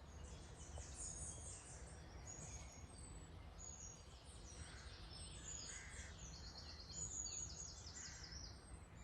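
Several birds chirping and trilling in quick, high-pitched phrases, over a steady low rumble.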